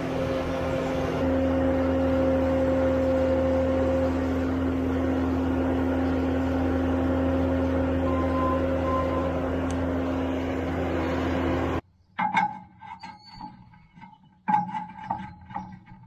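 Bobcat skid-steer loader's diesel engine running steadily at high throttle as its hydraulic auger drills a post hole, getting a little louder about a second in. It cuts off abruptly near the end, leaving a few quieter knocks and scuffs.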